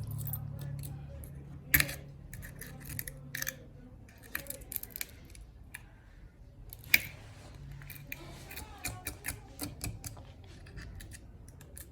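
Irregular small clicks and ticks of hand tools working on the cracked back glass of an iPhone, with two sharper clicks about two and seven seconds in.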